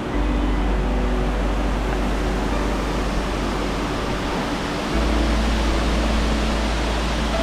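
Waterfall: a loud, steady rush of falling water, stepping up slightly in level about five seconds in.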